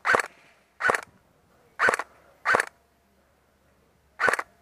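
An airsoft rifle firing five single shots at an uneven pace, each a sharp snap with a short ringing tone.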